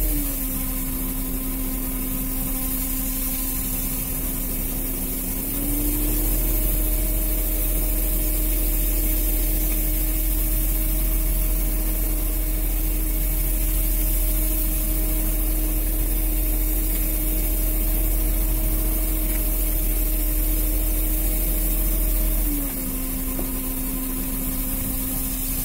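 Fishing boat's engine running with a steady drone, its pitch and loudness stepping down slightly at the start, back up about six seconds in, down again near the end and then up once more, as the revs are eased and raised.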